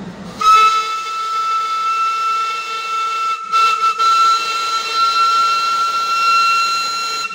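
Steam whistle of Darjeeling Himalayan Railway steam locomotive No. 780 blown in one long, steady, high-pitched blast of about seven seconds, broken twice for an instant a little before the middle and cut off sharply at the end.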